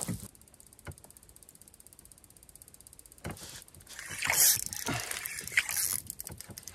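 Spinning reel being cranked, its gears and handle ticking in quick runs of clicks as line is wound in, starting about three seconds in.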